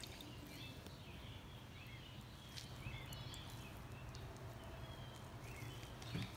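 Faint birds chirping in the background over a steady low hum, with a few soft clicks.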